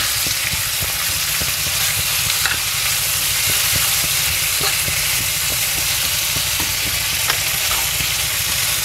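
Pork and fiddlehead ferns sizzling steadily in oil in a frying pan over a high flame. A wooden spatula stirs through them, with small scattered knocks against the pan.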